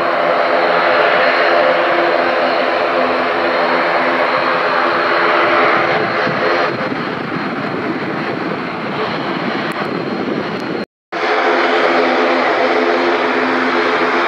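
ATR 72-600 turboprop engines and six-blade propellers running, a steady droning hum of several even tones that turns rougher and noisier about seven seconds in. Around eleven seconds the sound cuts out for a moment, then the propeller hum resumes.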